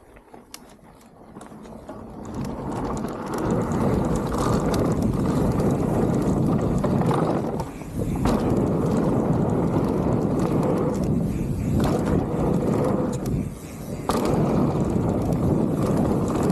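Mountain bike tyres rumbling over a dirt trail, with wind buffeting the microphone, building over the first few seconds as the bike picks up speed downhill. The noise dips briefly twice, about eight and thirteen and a half seconds in.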